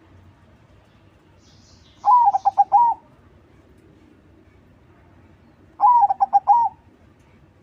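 Zebra dove (perkutut, crossbred 'crossing' type) singing two phrases about three and a half seconds apart. Each phrase is an opening note followed by a quick run of four or five cooing notes.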